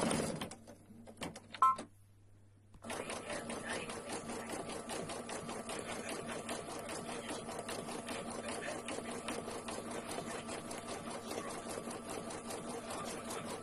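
Computerised embroidery machine stitching out a felt leaf appliqué. It pauses briefly with a short beep just under two seconds in, then runs again at a steady, fast needle rhythm.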